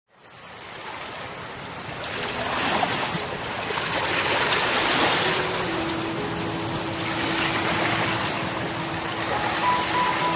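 Ocean surf washing in and ebbing in slow swells, fading in from silence at the start. A faint steady held tone comes in a little past halfway.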